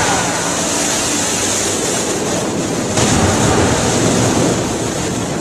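Rushing, churning water as the research vessel Sikuliaq's hull slides sideways into the river at its side launch, a steady wash of surf and spray that swells a little about three seconds in, with wind noise on the microphone.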